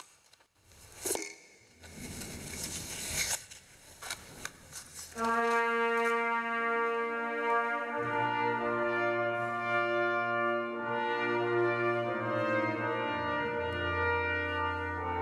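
Brass ensemble playing slow, held chords that begin about five seconds in and change every few seconds, with a deep bass part joining about three seconds later. Before the music there are a few scattered knocks and rustles.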